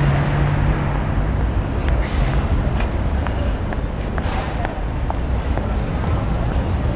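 City street ambience at a tram stop: steady traffic and tram noise with a low hum in the first second or so and a few short clicks.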